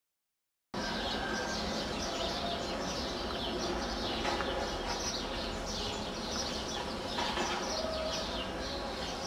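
After a brief silence, a flock of small birds chirping busily, many short falling chirps overlapping, over a steady background of outdoor noise.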